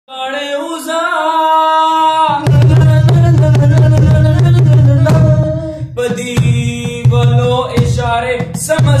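A man singing a long held note, joined about two and a half seconds in by hand drumming on an upturned plastic ghee tub used as a drum, a deep, fast beat under the song. The drumming drops out briefly near six seconds, then picks up again.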